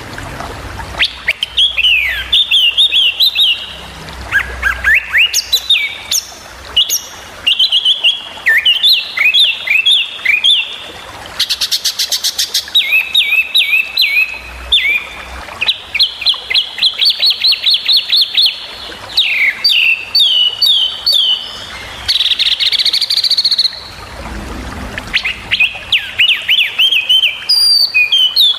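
A small songbird sings sharp, rapid 'tembakan' phrases: bursts of quick, clipped notes that sweep down and up, broken by short pauses. There is a fast buzzy trill about twelve seconds in. A steady hiss lies underneath.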